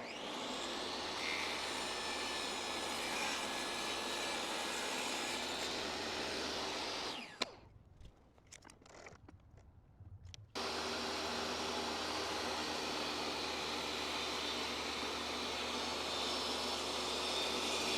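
Power saw running while ripping a board down lengthwise. It stops with a click about seven seconds in, and after a few seconds of quiet handling it starts again abruptly and runs on.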